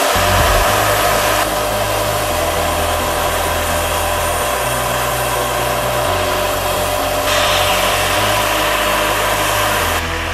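Turbine engine and rotors of a large radio-controlled scale Agusta A109 helicopter running steadily in flight, a loud high whine over a wide hiss. The sound brightens and swells a little about seven seconds in.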